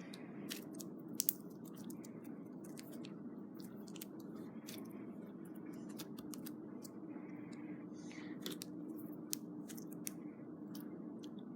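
Slime with small foam balls mixed in being poked and squeezed by hand, giving scattered small crunchy clicks and pops, a couple of them louder about a second in, over a faint steady background hum.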